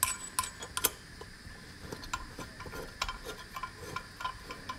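Light metallic clicks and clinks as a metal hex nut is set over the threaded top of a single-stage gas pressure regulator and spun on by hand, with a few sharper clinks in the first second and lighter ticks after.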